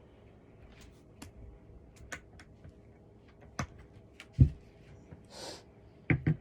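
Scattered light clicks and knocks of cat tree parts being handled during assembly, with one loud thump about four and a half seconds in, a brief rustle, and a few more knocks near the end.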